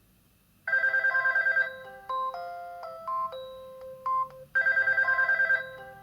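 Maxcom Comfort MM831 3G phone playing a ringtone through its speaker. The tune starts just over half a second in: a rapid warble lasting about a second, then a short tune of single electronic notes. The pattern starts over about four seconds later.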